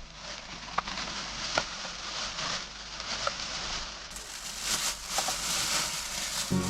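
Steady hiss of water, with a few faint short ticks over it. Music starts right at the end.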